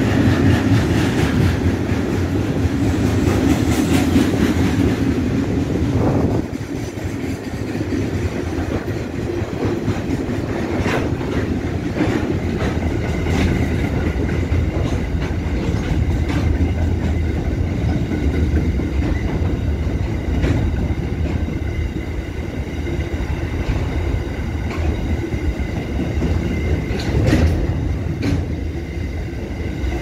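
A loaded freight train's wagons, carrying steel coils and then containers, roll past close by. The steady rail rumble is broken by sharp clacks of the wheels over rail joints. It is loudest for the first six seconds, then drops a little and runs on evenly.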